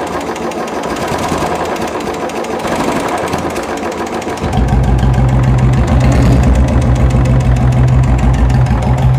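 Royal Enfield Bullet Electra single-cylinder engine running, with the rapid 'tik tik tik' ticking from the engine that the mechanic calls very loud. The ticking is traced to the decompressor pin working loose by the timing gear. About four and a half seconds in, the engine sound grows much louder and deeper.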